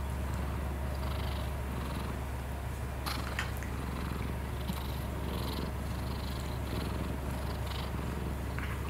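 Domestic cat purring steadily, close up, with a couple of light clicks about three seconds in.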